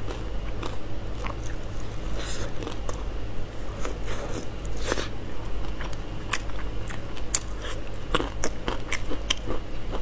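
Close-miked biting and chewing of crispy roast pork belly, the crisp skin crunching in a string of irregular sharp crackles.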